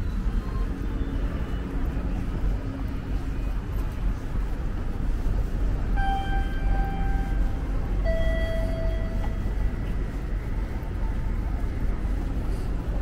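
Steady low rumble of city traffic, with two short electronic tones: one about six seconds in and a lower one about two seconds later.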